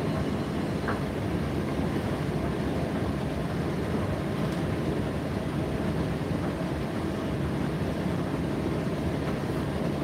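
Indesit IDC8T3 8 kg condenser tumble dryer running mid-cycle: a steady, even machine noise from the motor, fan and turning drum.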